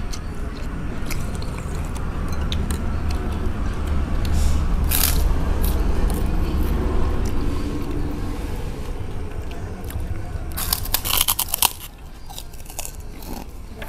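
Close crunching and chewing of a crisp fried cracker, with sharp crunches of bites about five seconds in and again in a cluster near eleven seconds.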